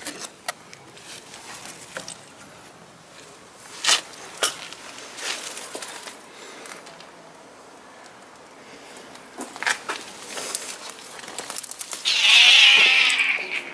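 Light rustling and handling in garden plants, then a loud animal cry about twelve seconds in, lasting about a second and a half.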